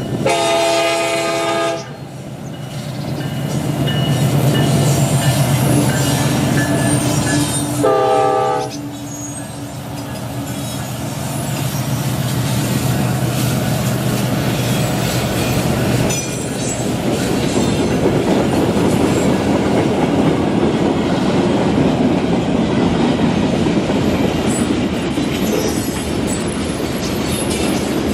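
Dubbed-in sound effect of a full-size train: a locomotive air horn sounds a long blast, then a short one about eight seconds later, over a steady engine drone. About halfway through, the drone gives way to a steady rumble and clatter of wheels on rail.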